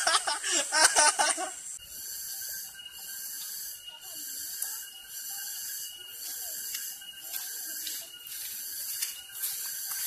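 A young man laughing out loud for about the first two seconds, then a steady high hiss of outdoor background with a few faint thin tones.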